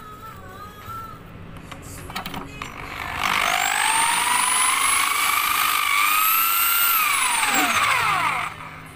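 Electric power tool driving a socket on an alternator's pulley nut, whirring as it spins up with a steadily rising pitch for several seconds, then winding down with a falling pitch.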